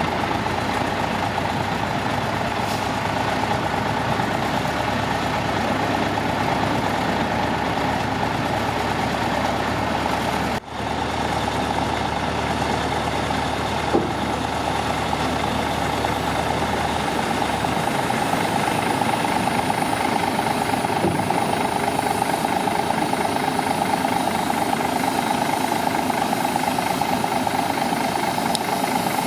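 Heavy diesel machinery engines running steadily, with a brief break about ten seconds in.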